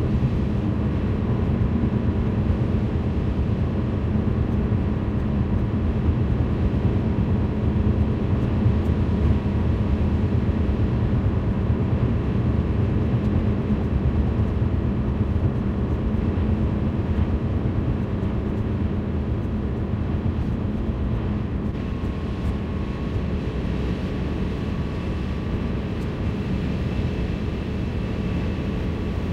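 Steady road and engine noise inside a moving car's cabin, a continuous low rumble with no change.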